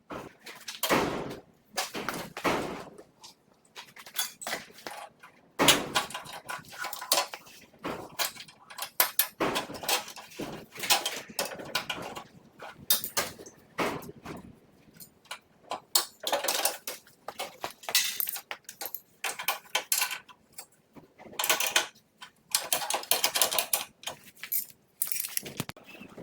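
Irregular metal clinks, clanks and rattles of tools and steel parts being handled while working on a snowmobile's skis and spindles, coming in short clusters with brief pauses between.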